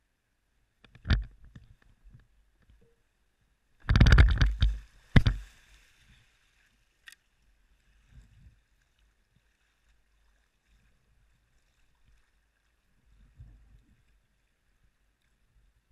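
Plastic whitewater kayak launching off a muddy riverbank into the water: a knock about a second in, then a loud rush of hull sliding and splashing about four seconds in, followed by a few soft paddle splashes.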